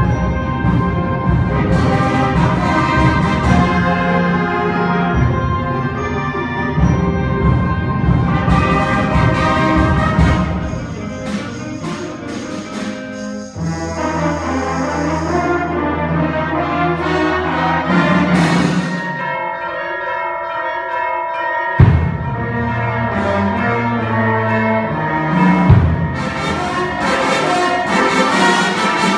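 A school concert band playing live, with brass and timpani prominent in full, sustained chords. The music thins briefly midway, and two sudden loud percussion hits come in the second half.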